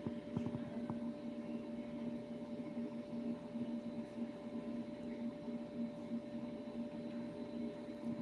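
A steady electrical hum, with a few soft taps in the first second.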